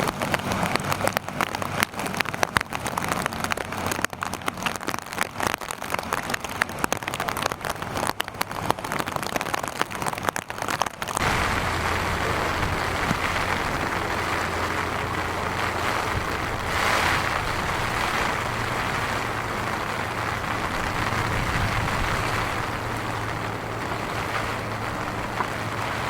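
Rain falling, at first as dense rapid drop hits close to the microphone; about eleven seconds in it changes suddenly to a steady rush of rain and water with a low rumble, swelling briefly a few seconds later.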